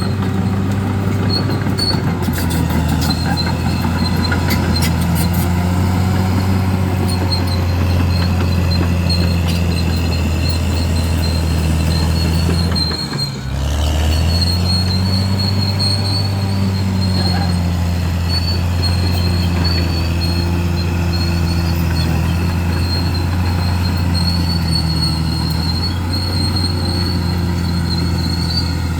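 Bulldozer's diesel engine running steadily under load, with a steady high squeal from the machine. The engine sound dips briefly about halfway through, then comes back up.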